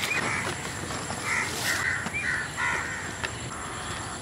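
Crows cawing: a quick run of about five short calls in the middle, over a steady background hiss.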